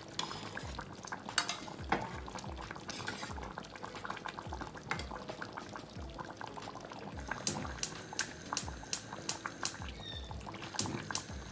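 A large pot of chicken broth simmering on the stove, bubbling and popping, with a ladle of broth poured off near the start. A run of sharp pops, about two a second, comes in over the last few seconds.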